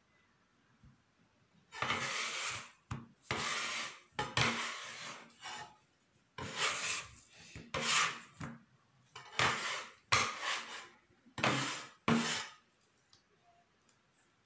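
About ten rough scraping strokes in kitchen food preparation, each half a second to a second long, starting about two seconds in and stopping near the end.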